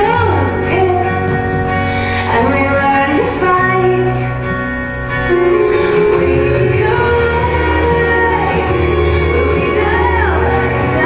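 Song with a woman's singing voice over sustained chords and a steady bass line.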